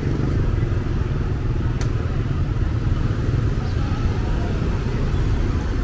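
Steady low rumble of motorbike engines and road traffic, with a single sharp click a little under two seconds in.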